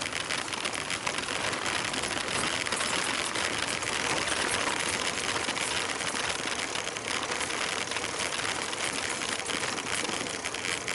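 Bicycle tyres crunching over a gravel dirt road, with a dense steady crackle of small ticks and rattles from the bike.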